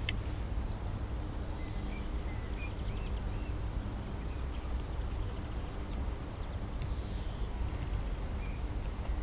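Small birds chirping and twittering now and then over a steady low outdoor rumble.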